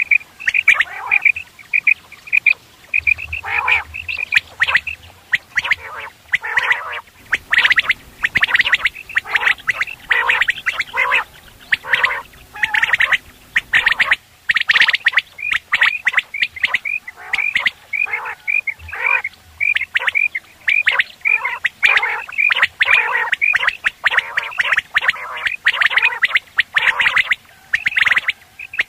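Caged common quail calling over and over: quick runs of short, high repeated notes alternating with harsher rasping calls. These are decoy calls used to lure wild quail to nets.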